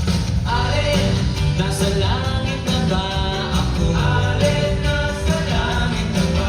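A song playing: a singer's voice over a band with steady bass.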